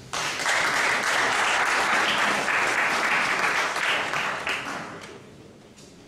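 Audience applauding, starting abruptly and dying away after about five seconds.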